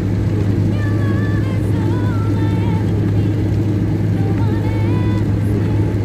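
Steady low drone of a vehicle driving along a wet road, heard from inside the cabin, with faint music wavering over it.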